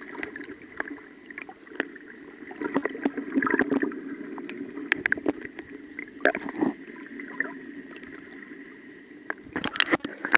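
Muffled underwater sound picked up by a submerged camera: a steady dull hum with bubbling and many short clicks and knocks as hands and water move around it, busiest near the middle and at the end.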